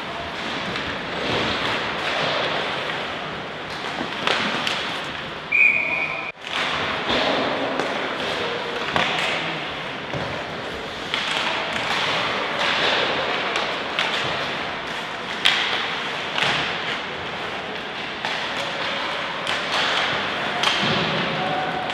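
Game sounds in a sports hall: a steady background noise broken by repeated knocks and thuds, with one short referee's whistle blast about five and a half seconds in.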